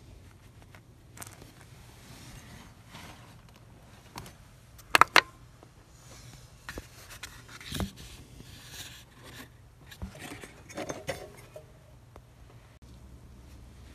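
Handling noises of hands working with small hardware under a car's dashboard: scattered scrapes and knocks, with a quick cluster of two or three sharp clicks about five seconds in, over a faint steady low hum.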